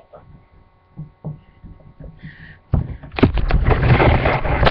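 Rubbing and bumping noise from a webcam's microphone being jostled. A few soft thumps come first, then loud, continuous scraping and low thuds start near the end.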